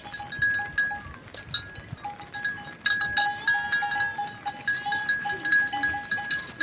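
Livestock bells on a herd of goats clanking over and over at a fixed pitch, with sharp clicks among the rings. The sound cuts off abruptly at the end.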